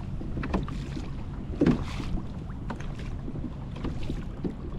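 Water slapping against the plastic hull of a fishing kayak, with wind on the microphone as a steady low rumble. A few short knocks come through, the loudest about a second and a half in.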